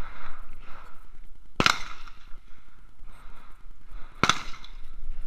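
Two sharp gunshots about two and a half seconds apart, each with a short echoing tail: carbine fire from elsewhere on the shooting range.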